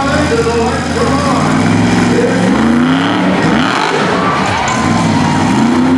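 Monster truck engine revving, its pitch climbing twice: about two seconds in and again near the end.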